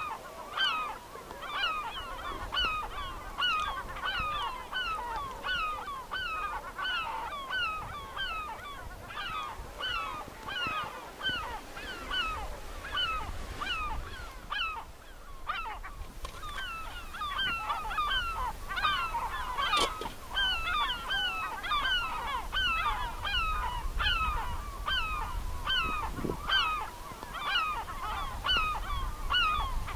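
A large flock of sea ducks calling on the open sea: a dense, continuous chorus of many short overlapping calls that slide in pitch, several a second.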